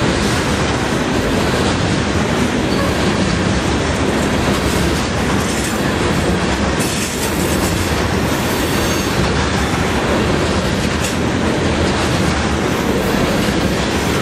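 Coal train's open-top hopper cars rolling past close by: a steady rumble and clatter of steel wheels on the rails.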